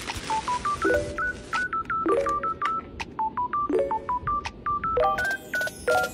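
Background music made of short, high electronic beeps in a bouncy, repeating melody. In the first second there is a rustle of the plastic mailer bag and fabric as the hoodie is pulled out.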